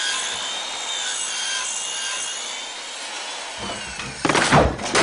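Wood scraping and rubbing, starting as a low rumble and swelling into loud scrapes about four seconds in, as a wooden floor hatch under straw is pushed open from below. Before it there is a steady hiss with high, thin wavering tones.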